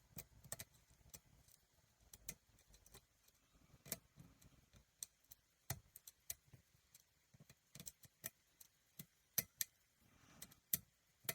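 Faint, irregular metallic clicks and ticks of a lock pick and tension wrench working the pins of a custom challenge lock while it is being picked.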